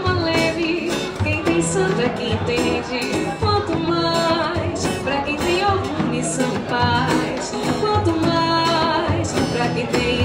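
A woman singing an axé song over a band with a steady percussion beat.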